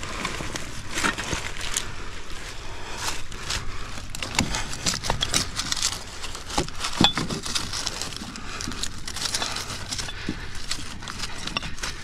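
Dry leaf litter and twigs crackling and rustling as a gloved hand digs through them, with scattered small knocks and clicks.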